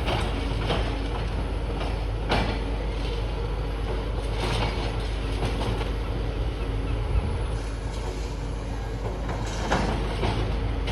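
Heavy diesel demolition machinery running with a steady low drone, broken by a few sharp knocks about two, four and ten seconds in.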